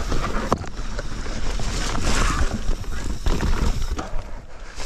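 Mountain bike rolling down a dirt forest trail: tyre noise and the bike's rattling, with sharp knocks from roots and bumps, over a deep wind rumble on the microphone.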